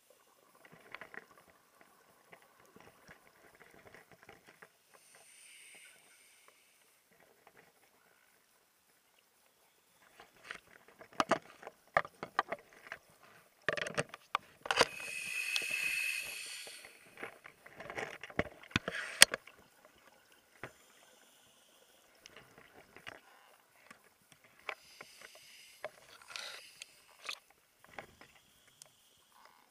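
Scuba diver breathing through a regulator, heard underwater: a hissing inhalation about every ten seconds, the loudest one midway with a whistling tone in it. Exhaled bubbles crackle and knock in between.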